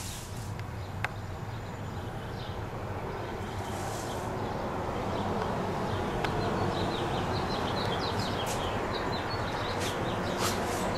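Outdoor background noise: a steady low rumble that grows slowly louder, with a run of short high chirps in the second half.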